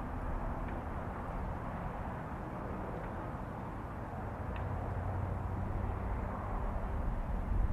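Low rumble of a distant train running on the line, growing louder near the end as it approaches.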